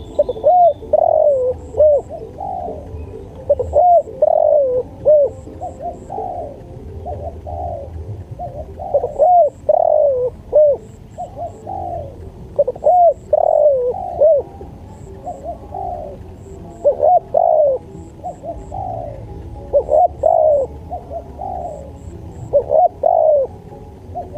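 Spotted dove cooing: repeated phrases of a few bending, rising-and-falling coos, a new phrase every three to four seconds.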